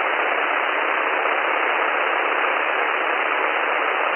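Steady, even hiss on the aircraft's intercom and radio audio line, thin and narrowed like a radio channel, with no engine note or voices coming through.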